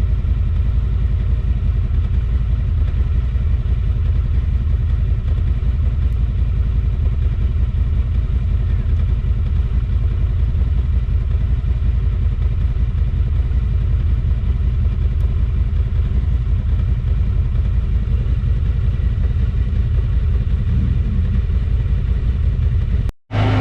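A vehicle engine running steadily with a low rumble throughout; the sound drops out suddenly near the end.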